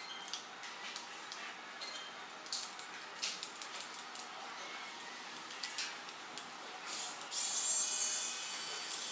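Small screwdriver driving screws into a plastic toy robot's body: scattered light clicks and ticks of plastic, with a louder scraping rub for about a second and a half near the end.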